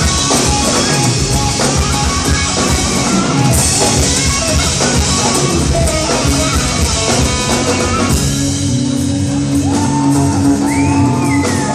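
Live rock band playing loudly: drum kit and electric guitar in full swing. About eight seconds in, the drums drop back and a held note rings out with gliding pitched lines over it.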